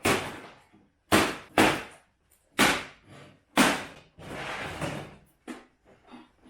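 A microwave oven's metal casing being struck hard: five heavy, ringing blows about a second apart, then a rattling clatter and one lighter knock.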